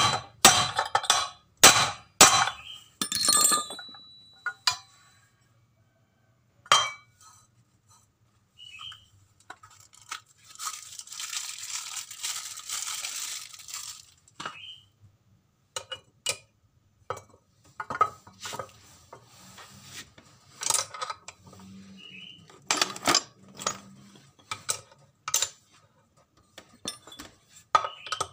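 Steel pipe used as a drift to drive a ball bearing onto a Honda Beat crankshaft: several sharp metal-on-metal strikes in quick succession in the first few seconds. After a few seconds of rustling come scattered clinks of steel collars being set on the shaft, and a few more strikes toward the end.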